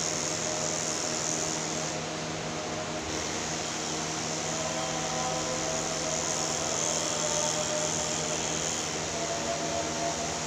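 Corded electric pet grooming clipper running with a steady motor buzz as it shaves the fur under a small dog's neck and chest.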